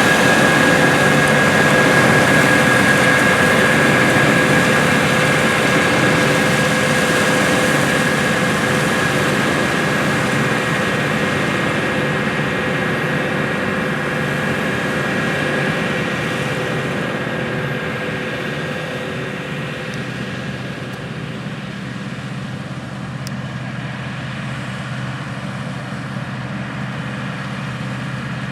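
Heavy harvest machinery running steadily: diesel engine noise with a steady high whine on top, slowly fading away, the whine dying out near the end.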